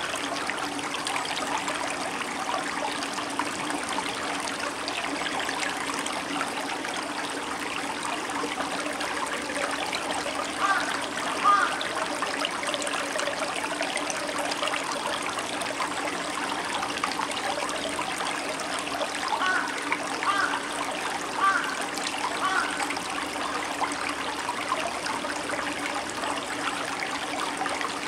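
Shallow stream flowing over rounded stones: a steady babble and trickle of water, with a few short louder gurgles about ten seconds in and again near twenty.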